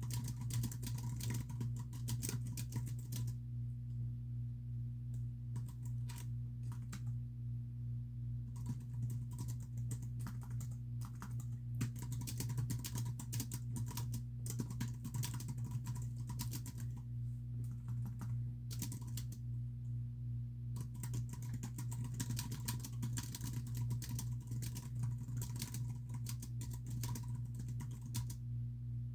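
Typing on a computer keyboard in quick bursts of key clicks, broken by short pauses every several seconds, over a steady low hum.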